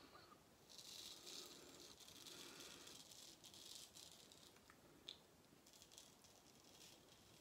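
Razor blade scraping through lathered stubble: a faint, dry rasping hiss in runs of short strokes, strongest in the first half, then fainter with a few small ticks.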